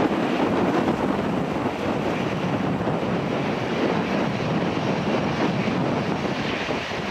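Airbus A319-111's CFM56-5B turbofan engines running at low taxi power as the airliner rolls past, a steady rushing noise with wind buffeting the microphone.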